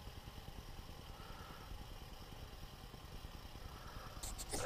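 Faint low rumble with three brief, faint whines a couple of seconds apart. Near the end, sharp clicks and rustling start as a hand handles the model.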